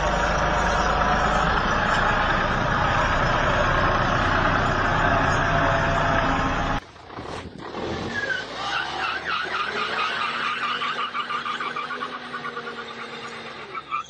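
A tractor's engine running hard under heavy load. About seven seconds in, a sudden cut switches to a Mercedes G-Class engine revving with its wheels spinning on pavement in a tug-of-war with a tractor, giving a quicker, fluttering sound.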